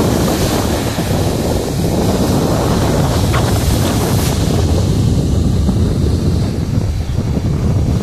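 Sea surf breaking against rocks and washing up a sandy beach, under a heavy low rumble of wind buffeting the microphone. The hiss of the wash is strongest in the first few seconds and eases after about four seconds.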